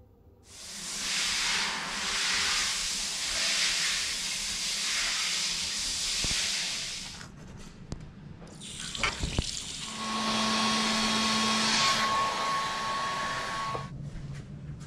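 A shower running, an even hiss of water spray for about seven seconds. After a pause with a few clicks, a basin tap runs into a sink for about five seconds.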